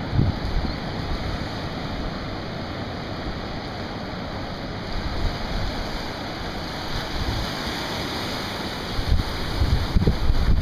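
Rough ocean surf, with whitecap waves rolling in and breaking in a steady wash. Wind buffets the microphone at the start and again near the end.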